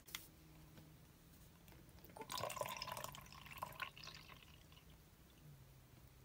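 Water poured out of a small plastic toy dome into a plastic measuring jug, trickling and splashing for about two seconds starting about two seconds in, then a few light drips.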